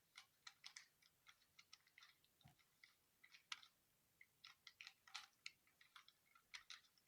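Faint, irregular plastic clicking of a Rubik's cube's layers being twisted, in quick uneven runs of small clicks.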